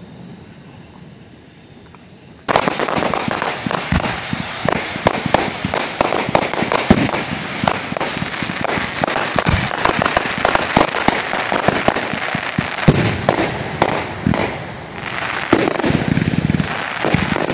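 Fireworks display: after a quiet lull, a sudden barrage of dense crackling and rapid sharp bangs starts about two and a half seconds in and keeps going without a break.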